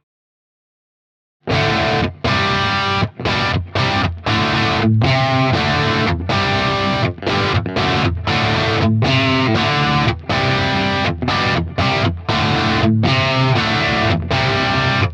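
Electric guitar, a Stratocaster played through a treble booster pedal into a crunchy overdriven Vox-style tube amp. It starts about a second and a half in after dead silence, then plays loud riff phrases and chords broken by many short stops.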